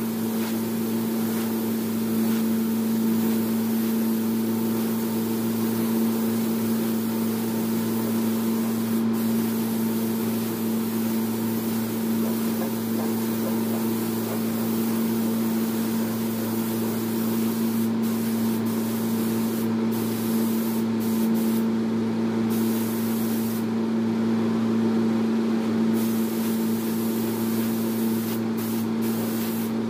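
Paint spray gun hissing as paint is sprayed onto a car, over a steady machine hum. In the second half the hiss breaks off briefly several times as the trigger is let go.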